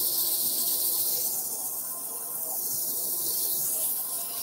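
150-grit cloth-backed abrasive held against a sycamore bowl spinning on a wood lathe: a steady sanding hiss that eases a little in the middle and builds again, over a faint steady hum from the lathe and dust extractor.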